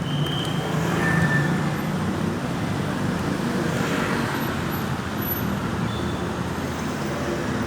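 Steady road traffic, with vehicle engines running and passing by.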